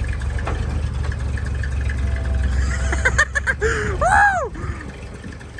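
1927 American LaFrance fire engine pumper's engine running low and steady as the truck pulls away under its own power. A few clicks about three seconds in, then a brief, loud whoop that rises and falls in pitch.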